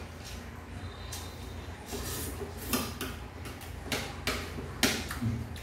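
Fork and spoon clinking and scraping against a plate of noodles, in several short, irregular clicks.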